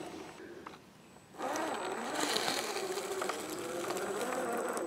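Axial SCX10 II scale RC crawler's electric motor and gear drivetrain whining as it crawls over rocks, the pitch rising and falling with the throttle. The sound drops out briefly about a second in, then picks up again.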